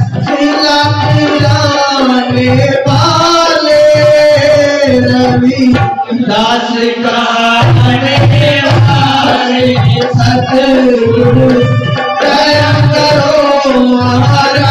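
Live Indian devotional music: a melody with bending pitches over a steady hand-drum beat.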